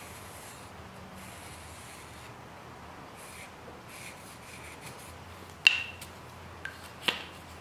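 Felt-tip marker rubbing along a steel knife blade in several short strokes, inking the edge bevel before sharpening. About two-thirds of the way in comes a sharp metallic click with a brief ring, then two lighter clicks, as the blade is laid on the guided sharpener's rest.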